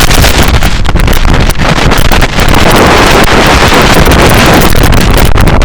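Loud wind buffeting the microphone on the roof of a moving bus, a continuous roaring rush of air.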